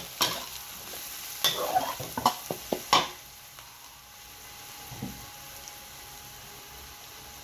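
A metal spatula scrapes and knocks against a pan while food stir-fries and sizzles. The scraping strokes stop about three seconds in, leaving a steady sizzle.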